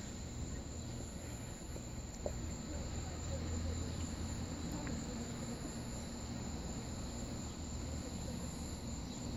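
Steady high-pitched trilling of insects, with a low steady rumble underneath that swells briefly a few seconds in.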